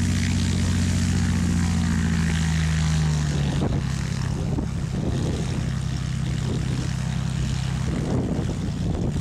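Light single-engine airplane's piston engine and propeller running at run-up power during the pre-takeoff magneto check. About three seconds in the pitch drops and the engine settles to a lower, less even beat as power is brought back.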